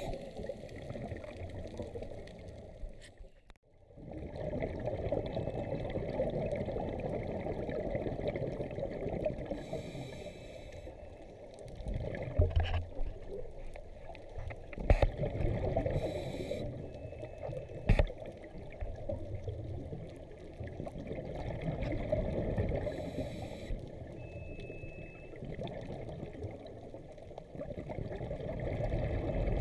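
Underwater sound of a scuba diver breathing through a regulator: a hiss of inhalation every six or seven seconds, with the rush of exhaled bubbles in between. A few sharp knocks come in the middle.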